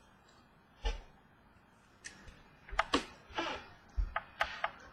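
Trading cards being handled by hand: a soft knock, then a run of light clicks and short swishes as cards are slid and set down.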